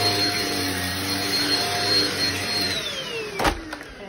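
Shark stick vacuum running over carpet with a steady motor whine, then switched off about two-thirds of the way in, the whine gliding down as the motor spins down. A sharp knock follows near the end.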